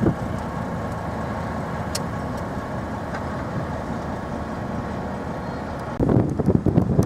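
Steady engine hum with a faint whine, which about six seconds in gives way abruptly to wind buffeting the microphone.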